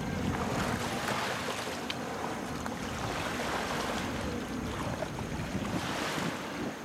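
Several people wading through shallow water, their feet splashing and sloshing, over a steady low rumble of wind on the microphone.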